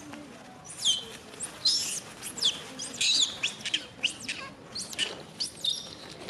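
Many short, shrill chirping and squealing calls overlap, most of them sliding down in pitch. They come thickest in the first half and more sparsely towards the end.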